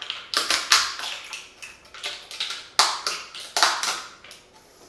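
New RAM modules being handled and taken out of their plastic packaging: an irregular run of sharp taps and plastic clicks and crackles, several a second, thinning out near the end.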